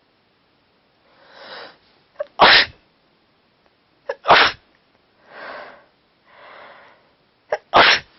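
A person sneezing three times, about two to three seconds apart. Each loud sneeze is preceded by a sharp catch of breath, with drawn-in breaths between them: a sneezing fit from a head cold.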